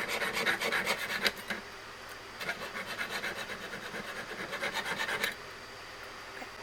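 Fast, even scraping strokes of a hand tool working a sterling silver ring band, in two runs with a short pause between. The strokes stop abruptly about five seconds in.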